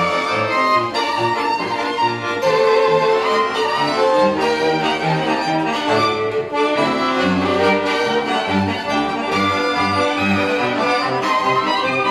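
Live folk band playing an instrumental tune on two fiddles, accordion and bowed cello, the fiddles carrying the melody over a rhythmic bass line.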